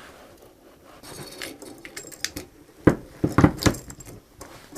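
Metal parts of a router being handled and fitted back together: a scatter of clicks and knocks, with a cluster of sharper knocks about three seconds in.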